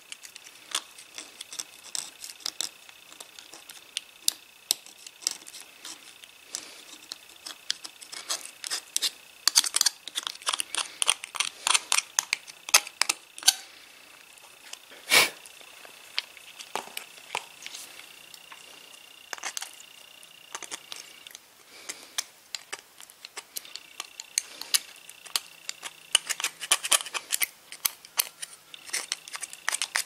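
Small metal parts and hand tools being handled: irregular clicks and taps, with one louder knock about halfway through. A steady high tone comes and goes behind them.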